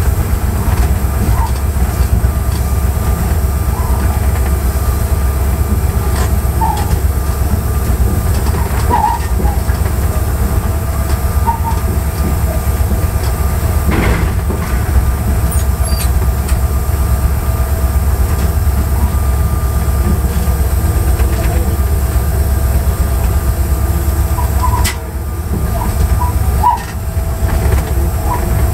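Steady low rumble of an EMD GT36HCW diesel locomotive's two-stroke V16 engine and running gear, heard from inside the cab while the train is under way. Faint short squeaks come and go, and the sound dips briefly twice near the end.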